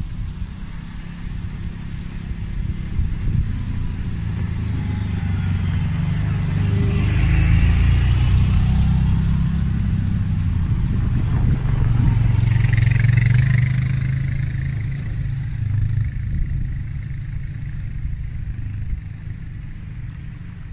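Several ATV (quad) engines running as the machines ride up a gravel trail towards the listener and go by one after another. The sound swells twice, about seven and about thirteen seconds in, as machines pass close, then fades.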